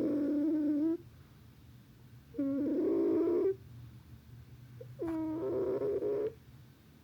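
Domestic cat snoring in its sleep: three drawn-out, pitched snores, each a little over a second long, coming about every two and a half seconds with the breathing.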